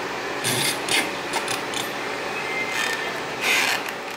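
Liebherr R926 excavator running steadily while its tiltrotator bucket scrapes soil and stone across the slope, giving several short, harsh rasps over the engine, the longest about three and a half seconds in.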